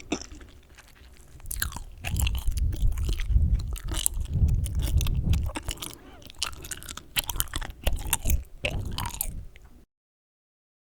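Close-miked chewing gum: wet smacking and sticky clicks of the mouth working the gum, irregular, with bursts of low rumble from the microphone. The sound cuts off abruptly near the end.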